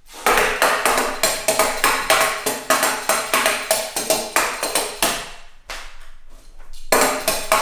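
Music with a quick, tapping percussive beat, which drops out briefly about three quarters of the way through and then comes back.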